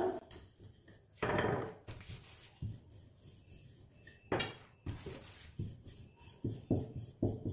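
Wooden rolling pin rolling out spinach paratha dough on a countertop, a soft rub with each stroke. Two longer strokes come first, then quicker short strokes near the end.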